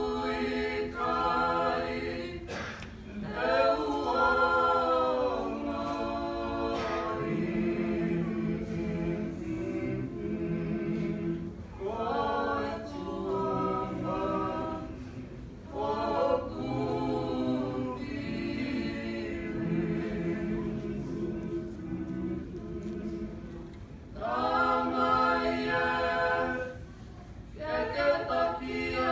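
A group of men and women singing together unaccompanied in long, held phrases.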